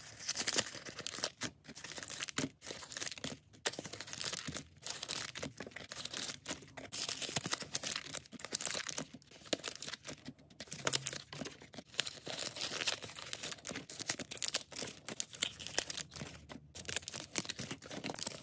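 Plastic sleeve covers of Disney Lorcana booster packs crinkling and tearing as the foil booster packs are pulled out of them, with the foil wrappers rustling; a dense run of crackles with a few short pauses.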